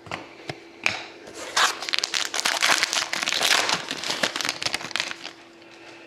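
Foil wrapper of a hockey card pack being opened and crinkled by hand. A few light clicks and taps come first, then about four seconds of dense crinkling that stops shortly before the end.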